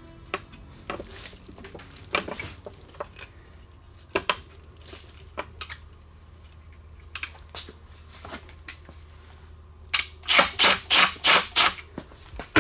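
Light metal clicks and knocks as the RTV-coated supercharger snout is handled and fitted onto the blower over its isolator bushing. Near the end comes a quick run of about seven harsh strokes, roughly six a second.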